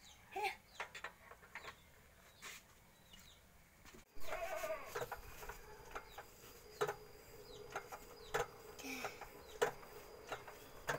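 An animal bleating a few short times, with scattered light clicks and knocks.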